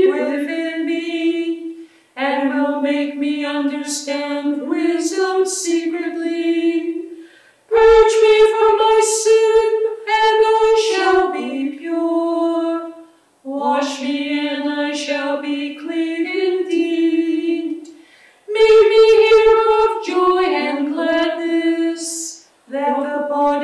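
Two women's voices singing a liturgical chant unaccompanied, in phrases of about five seconds with short breaths between.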